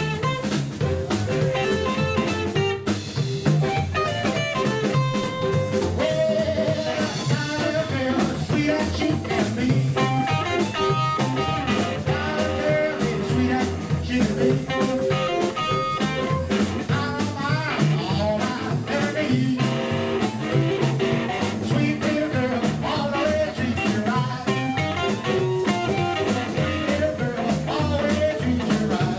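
Live blues band playing: hollow-body electric guitar, upright double bass, drum kit and amplified harmonica, with a man singing toward the end.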